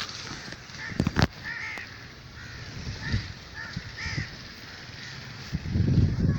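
Crows cawing repeatedly, a string of short harsh calls. Two sharp knocks come about a second in, and a low rumble rises near the end.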